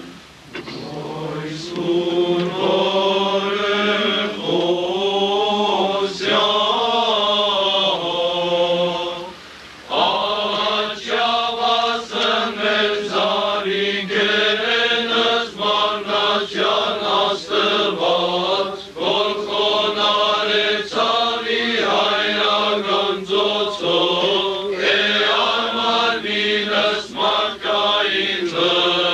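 Armenian liturgical chant sung by voices, with brief breaks about a second in and again near ten seconds.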